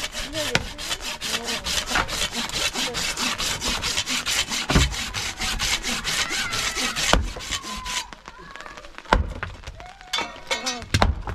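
Fast, even rasping strokes, about four a second, like a hand saw working through wood; they stop about eight seconds in, and a couple of sharp knocks follow.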